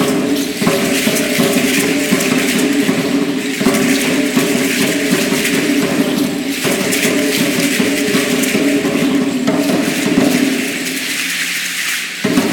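Aztec dance music: a dense, continuous shaking rattle, typical of dancers' seed-pod ankle rattles, over a steady sustained drone of several held tones that pauses briefly about every three seconds.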